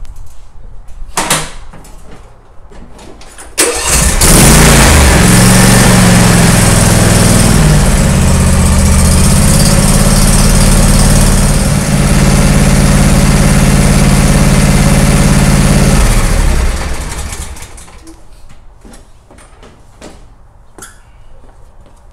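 John Deere S130 lawn tractor's Briggs & Stratton V-twin engine starting about three and a half seconds in and running steadily, then switched off at about sixteen seconds and winding down. It is run on freshly added oil to check the new oil filter fittings for leaks.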